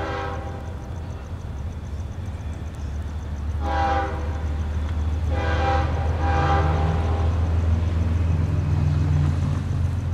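Approaching diesel locomotive sounding its air horn: a blast that ends just after the start, a short one about four seconds in, then two longer ones close together, over a low engine rumble that grows louder as it nears.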